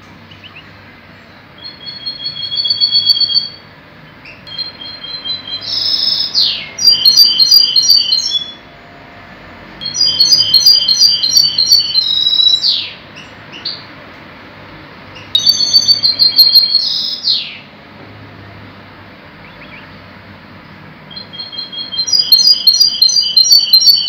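A caged finch singing in five bouts of a few seconds each, with pauses between. Each bout is a fast run of repeated high notes, broken by quick downward slurs.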